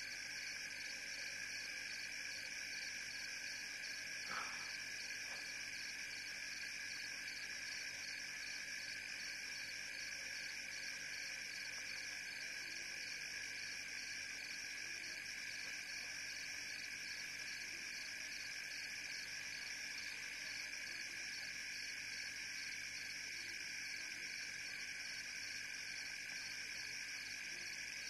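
Steady night chorus of frogs and insects, an unbroken trilling and chirring with a fine fast pulsing in the higher notes. One brief, sharper sound stands out about four seconds in.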